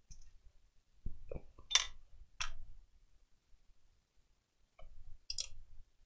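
A few short, sharp clicks and clacks of small hand tools and the console's plastic parts being handled: a cluster about one to two and a half seconds in, and another pair near the end.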